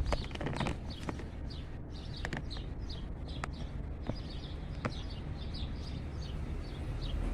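Small birds chirping over and over, with a few sharp metallic clicks and taps from tools on the engine, over a low steady hum.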